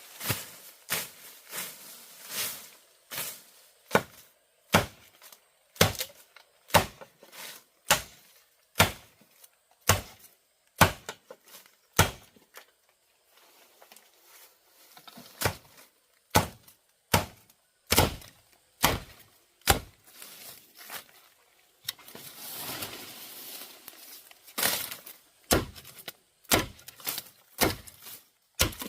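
Bamboo being chopped with a blade: sharp, evenly spaced strikes about once a second, stopping for a couple of seconds midway. A rustling lasting about two seconds comes in later among the strikes.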